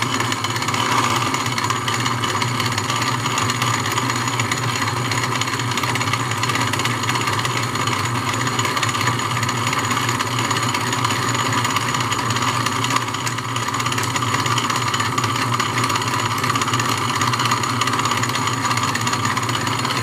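1920s Wade bench lathe running steadily under power, its belt drive and old electric motor making a constant mechanical whir with a steady tone, while the tool cuts a spinning wooden workpiece.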